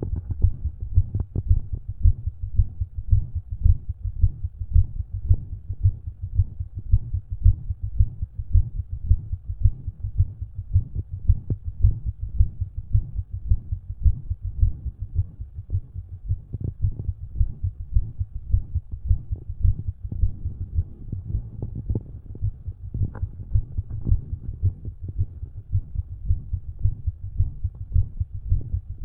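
Resting human heartbeat heard through a stethoscope: regular low thumps with a heart murmur, and an extra heart sound that the owner takes for a possible S4.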